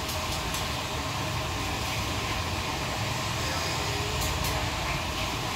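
Street-food stall ambience: a steady noisy hum from the stalls and road, with a few short clinks near the start and again about four seconds in.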